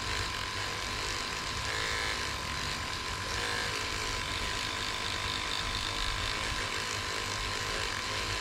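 Battery electric toothbrush converted into a foam-pad sander, its motor running with a steady buzz and a constant whine while the pad sands a seam line on a polyurethane lure.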